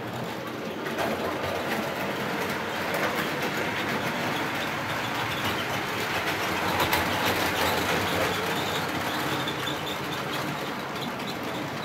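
OO-gauge model trains running round a layout: a steady whirr of locomotive motors and wheels on the track with fast clicking over the rail joints, louder in the middle as a train passes close.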